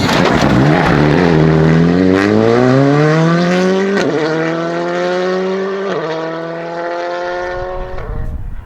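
Rally car engine pulling hard away from a slow point, its note climbing steadily. It is cut by two quick upshifts, at about four and about six seconds in, and fades as the car draws away.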